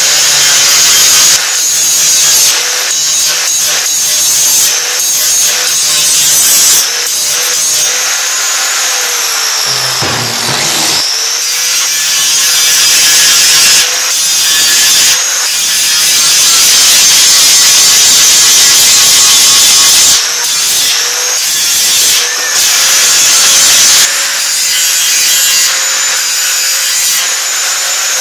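A grinder grinding down a weld bead on a 16-gauge steel bracket. The motor gives a loud, steady whine under the grinding noise, and the loudness swells and dips as the tool is pressed and eased off. About ten seconds in, the motor winds down and then spins back up.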